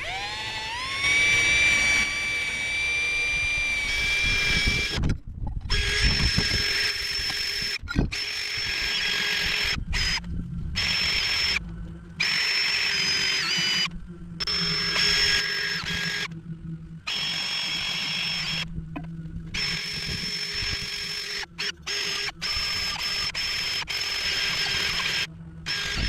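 Power drill running a cleaning attachment against a copper waste trap to scour off old paint. The motor whine rises as it spins up about a second in, then runs in spells, stopping and restarting many times.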